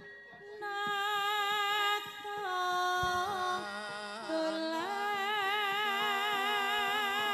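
Javanese gamelan music: a female singer holds long notes with a wide vibrato and slides between them, over the ensemble's metallophones and steady drum strokes. The voice comes in about half a second in, settles on a lower note near the middle and glides back up.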